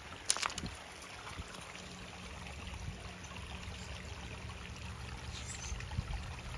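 Small waterfall pouring into a rock garden pond: a steady trickling splash. A brief sharp sound stands out about half a second in.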